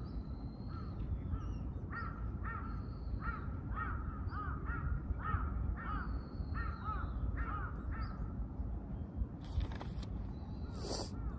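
Birds calling: a rapid series of short, repeated calls, two to three a second, with a few drawn-out high whistles among them, over a steady low rumble. Two brief rustling noises come near the end.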